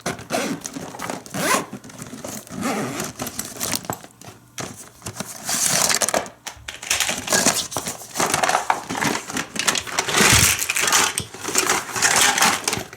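Irregular rustling and crinkling of packaging as a Hot Wheels track set is unpacked and its contents are handled.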